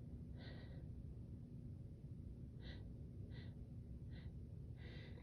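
A woman's faint, short, breathy inhales, about five of them spaced unevenly, as a hay-fever sneeze builds from tree pollen.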